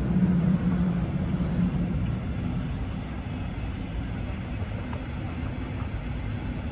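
Low rumble of a passing motor vehicle, its humming engine note fading out about two seconds in over steady background traffic noise.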